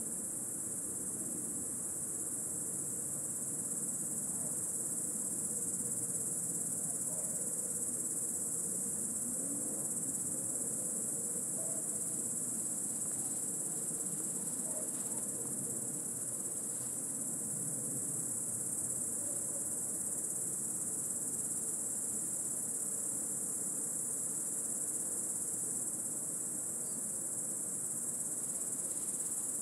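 Intense chorus of cicadas: one steady, high-pitched drone that runs on without a break.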